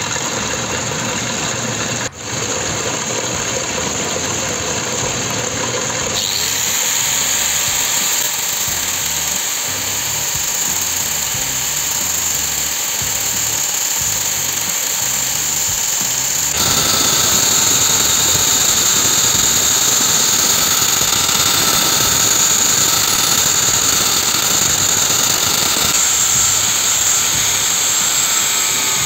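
Angle grinder grinding down a steel rod spinning in a homemade lathe, a steady high-pitched grinding. It gets louder about six seconds in and again a little past halfway.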